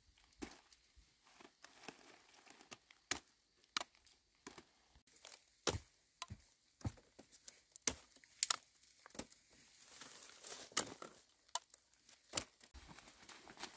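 Plants being chopped and torn by hand: irregular sharp chops and snaps about once a second, with tearing, rustling noise between them.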